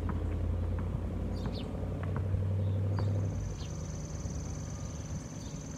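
A low steady engine hum, like a vehicle running close by, that drops away about three seconds in. Short bird chirps come and go throughout, and a high, even trill sets in about halfway through.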